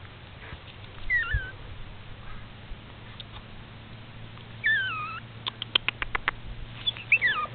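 Pomeranian puppy whimpering: three short, high whines that slide down in pitch, about a second in, near the middle, and near the end. A quick run of about eight sharp clicks comes between the last two whines.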